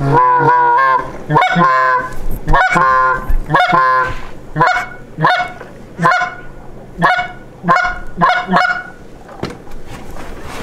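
Goose honking, loud and close: a quick cluster of honks at first, then single honks about every two-thirds of a second, ending shortly before the close.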